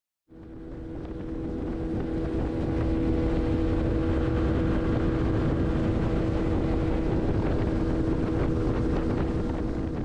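Outboard motor pushing a river pirogue at speed, a steady, even-pitched drone over the rush of the hull's wash, with wind buffeting the microphone. It fades in over the first two seconds.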